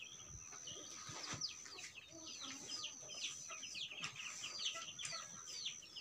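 Chicks peeping over and over: many short, high cheeps that each slide downward, several a second. A thin, steady high tone runs behind them, breaking off now and then.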